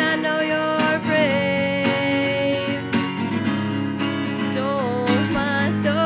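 Acoustic guitar strummed in a steady rhythm, about one strum a second, with a woman's wordless singing holding and bending long notes over it.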